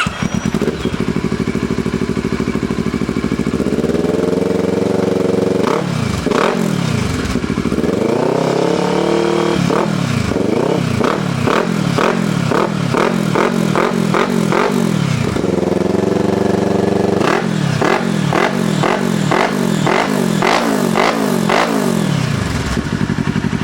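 Kawasaki Versys 650 parallel-twin engine running through a Roncar Coyote TRS polished-aluminium sport exhaust: it idles for a few seconds, then is revved, first a few single revs, then two runs of quick throttle blips with a short idle between, settling back to idle near the end.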